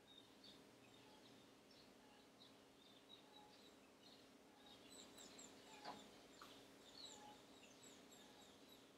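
Near silence: faint room tone with a low steady hum and scattered faint high-pitched chirps, and one faint click about six seconds in.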